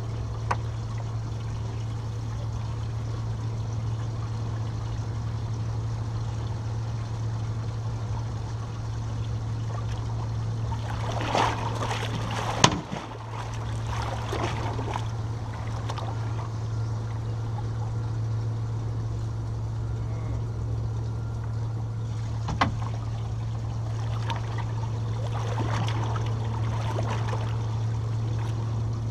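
Boat engine running steadily with a low hum, with a sharp click or knock a little before halfway and another about three-quarters through, and short spells of splashing or rustling around them.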